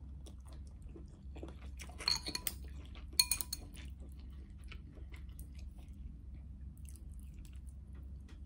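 Metal utensil clinking twice against a glass bowl, about two and three seconds in, each clink ringing briefly, as noodles are stirred and lifted. Soft mouth clicks and chewing sounds are scattered around it over a low steady hum.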